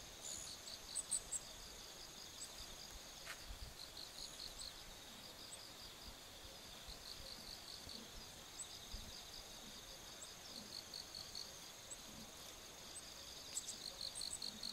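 Insects calling: a steady high-pitched buzz with rapid pulsed chirps beneath it, repeating in runs, and a few short high chirps scattered over it. A single faint click comes about three seconds in.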